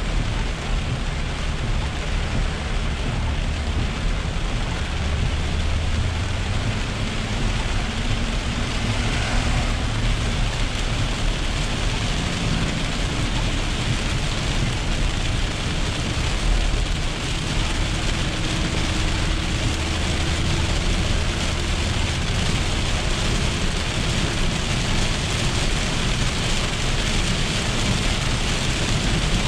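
Heavy rain falling on a car, heard from inside the cabin while driving, mixed with steady tyre noise on the flooded road.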